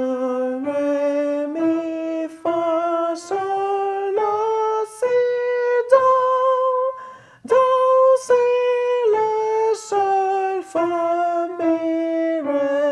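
A voice sings the C major scale in solfège, do re mi fa sol la si do, one held note per step, with each note struck on an upright piano. It climbs to the top do in the first six seconds, then after a short pause steps back down through si, la, sol, fa, mi.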